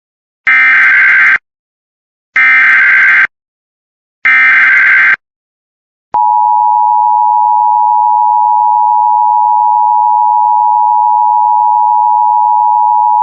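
Emergency Alert System SAME header: three bursts of data tones, about a second each, announcing a new alert. About six seconds in, the steady two-tone EAS attention signal begins.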